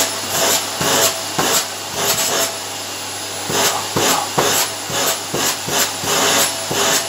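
Vacuum cleaner running with a steady motor hum while it is pushed back and forth over carpet. Each stroke adds a rasping rush, about two a second, with a short lull near the middle.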